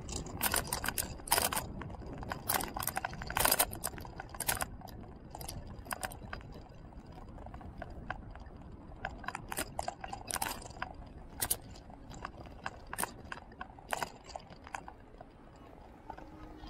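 Irregular clicking and rattling, thickest in the first few seconds and sparser later, over a low rumble of wind and road noise from a camera riding on a moving vehicle, with a faint steady high whine.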